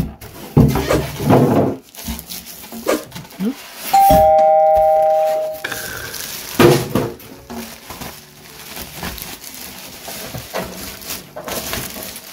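Plastic wrapping rustling and crinkling as it is pulled and handled. About four seconds in, a two-note doorbell-style ding-dong chime sounds, the higher note then a lower one, fading over about two seconds.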